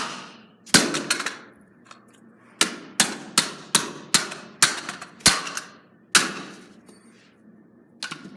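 About ten sharp smacks of a lacrosse stick striking a small plastic toy hairdryer, each with a short ringing decay, several coming in a quick run of two or three a second through the middle.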